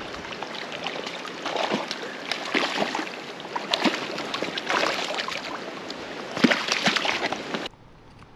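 Hooked brown trout splashing and thrashing at the surface of a stream as it is played to the landing net, a run of sharp splashes over the steady sound of running water. The sound cuts off abruptly near the end.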